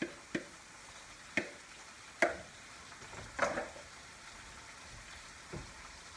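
Pork belly, beans and carrots sizzling steadily in a frying pan as shredded cabbage goes in. About six sharp knocks at uneven intervals stand out over the sizzle.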